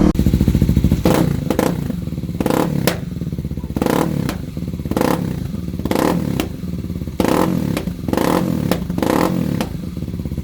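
Kawasaki KLX250's single-cylinder four-stroke engine running through an FMF Q4 exhaust, chugging at low revs with short throttle blips and pops about once a second.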